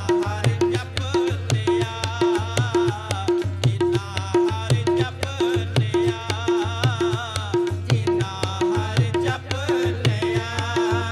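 Shabad kirtan music: tabla playing a steady, even beat with deep bass strokes under a wavering melodic line.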